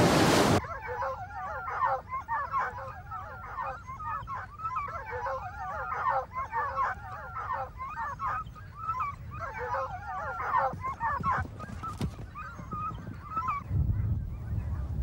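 Pack of foxhounds in full cry, many hounds baying at once in a dense chorus of overlapping calls that thins out near the end. It opens with a brief burst of wind noise on the microphone that cuts off under a second in, and a low rumble comes in near the end.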